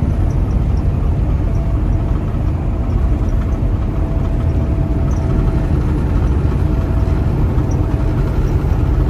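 Steady engine and road noise inside a moving semi-truck's cab, a deep even rumble with a faint constant whine above it.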